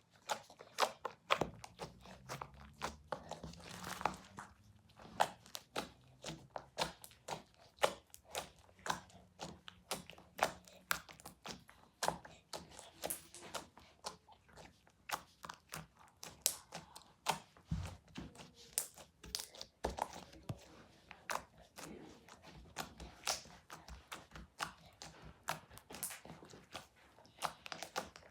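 Slime being pressed, squeezed and poked by hand, giving a quick irregular run of small crackles and sticky pops.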